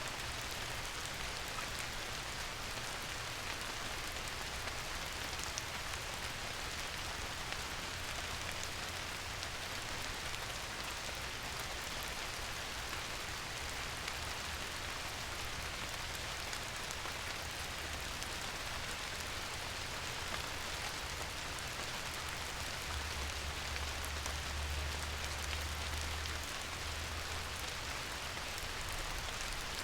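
Steady, even rain falling on a surface, a dense patter with no breaks. A low rumble swells for a few seconds about three-quarters of the way through.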